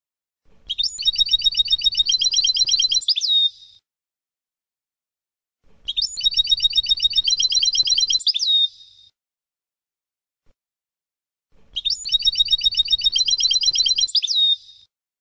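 European goldfinch song in the Palestinian 'Abu Khalil' style, three matching phrases of about three seconds each, separated by silence. Each phrase is a fast run of high repeated notes that ends in a quick sweep.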